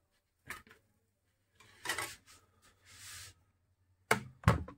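Kitchen handling sounds: scattered clicks and knocks of a steel slotted spoon against a small kadai of oil, a brief scraping hiss just after the middle, and two louder knocks near the end.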